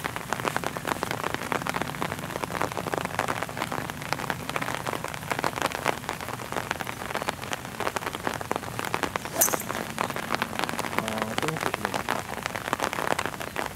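Heavy rain falling in a dense, steady patter. About nine seconds in, a single sharp click of a fairway wood striking the golf ball.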